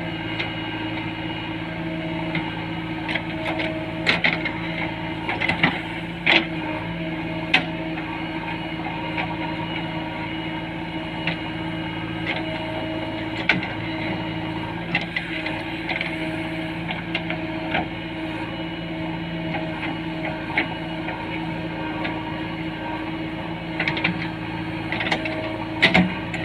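JCB 3DX backhoe loader's diesel engine running steadily, with scattered sharp knocks and clanks from the working digger.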